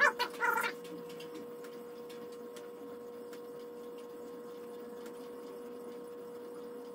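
Faint scraping of a wet Chosera 1000-grit water stone on a guided sharpener's rod, swept in strokes along the edge of a Maestro Wu G-4 fish cleaver, under a steady electrical hum. A brief louder burst of sound comes in the first second.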